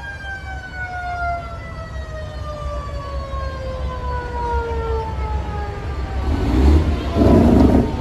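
A siren winding down, its pitch falling slowly and steadily throughout, over the low rumble of big-rig diesel engines. Near the end come two short, loud bursts of rushing noise.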